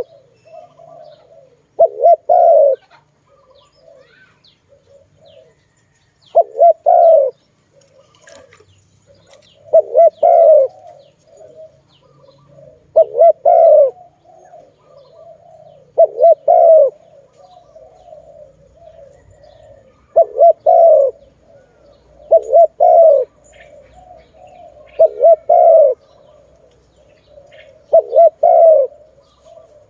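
Spotted dove (Malay tekukur) cooing: a loud, short double-noted coo about every three seconds, with softer cooing between them.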